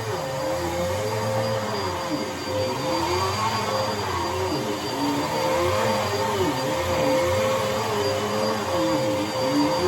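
Dirt Devil Breeze cyclonic vacuum cleaner running: a steady motor whine over a rushing noise, with a lower note that keeps wavering up and down in pitch.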